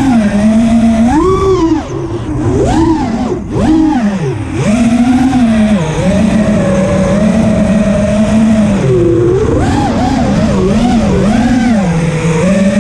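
Racing quadcopter's brushless motors and propellers whining, heard from a camera on board the drone. The pitch holds steady in cruise, then drops and swoops up and down as the throttle is chopped and punched, about two to five seconds in and again near the end.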